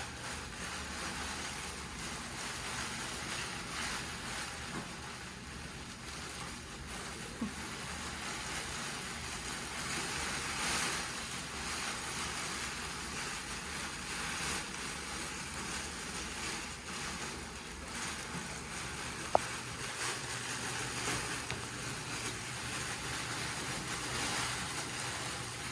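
Rustling and scuffling of a litter of Petit Basset Griffon Vendéen puppies tugging and tumbling over a fabric play tunnel on a hard floor, a continuous rustle that swells and eases as they wrestle. One brief sharp squeak cuts through about two-thirds of the way in.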